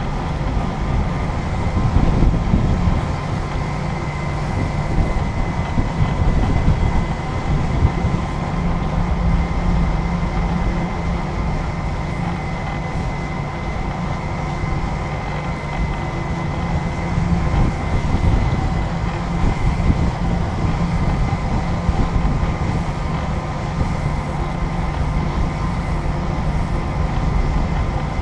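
Steady engine drone with a heavy low rumble and a faint, thin, steady high tone.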